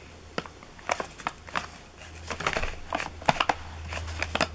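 Firework tubes and a plastic-wrapped firework cake being handled: crinkling wrapping and a string of irregular sharp clicks and knocks, busier in the second half.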